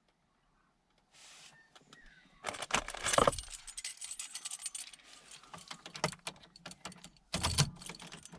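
A bunch of keys jangling and clicking in repeated short bursts, as the van's ignition key is handled.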